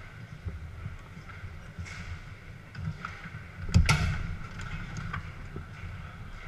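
Garlando foosball table in play: rods sliding and turning, with small clicks of the ball and figures, and one loud sharp bang a little before four seconds in, over the steady clatter and murmur of a hall full of other tables.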